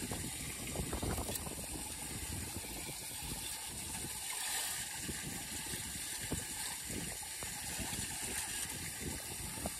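Water gurgling into a storm drain as leaf muck is raked off the grate with a small children's rake, with irregular scraping and splashing over a steady hiss. It is the sound of a clogged drain being cleared so the standing water can run away.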